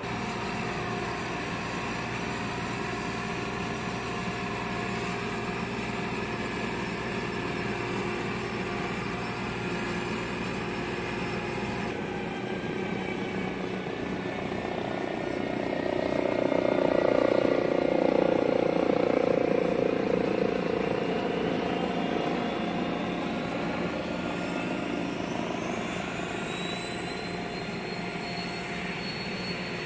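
Steady turbine engine noise with several held tones, swelling in loudness past the middle, and a whine rising in pitch over the last several seconds.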